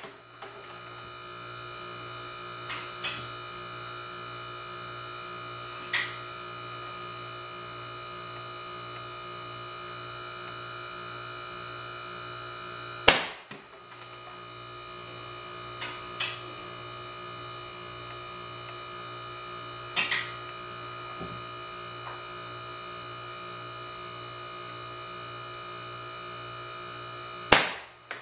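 Two sharp shots from a homemade .177 pneumatic air gun, fired through a solenoid valve from a 150 psi chamber, about fourteen seconds apart, the second near the end. Softer clicks and taps come in between, over a steady electrical hum.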